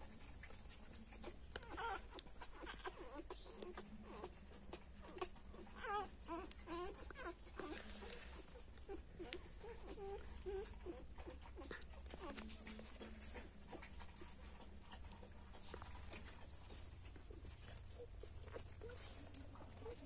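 Newborn puppies squeaking and whimpering in a rapid run of short, high little cries. The cries are thickest in the first half and grow sparser later.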